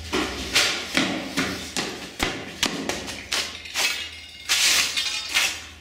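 Footsteps of a person in rubber clogs on a concrete floor, a series of knocks and scuffs about two a second, over a steady low hum.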